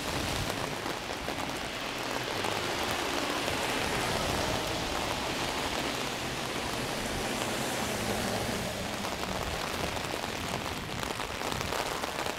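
Steady heavy rain, heard from under a hand-held umbrella.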